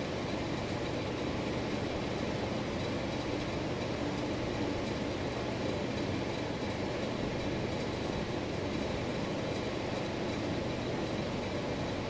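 Hugger four-blade ceiling fan running steadily: a constant whoosh of the blades with a low motor hum and a faint high whine.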